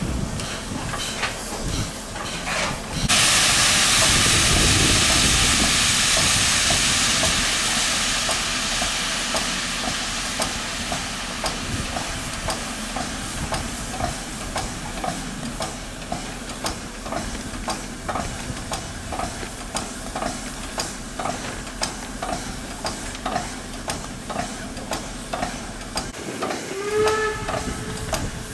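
Standing class 52 steam locomotive letting off steam: a loud hiss starts suddenly about three seconds in and slowly fades, over a steady beat of about two puffs a second.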